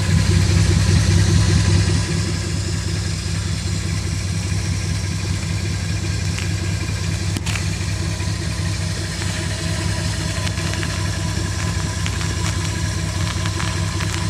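A faulty water pump running steadily with a constant low hum, a little louder in the first couple of seconds, and a single click about halfway through.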